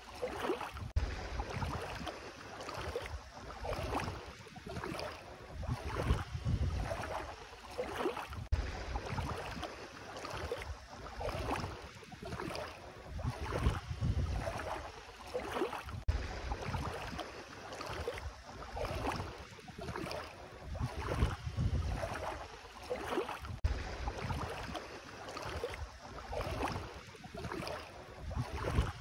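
Bare feet wading through ankle-deep sea water, sloshing and splashing with each step about once a second, with low wind rumble on the microphone now and then.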